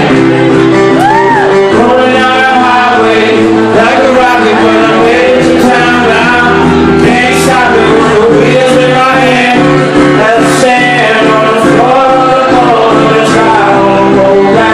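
A man singing live while playing an acoustic guitar, with the sung melody over the guitar's chords.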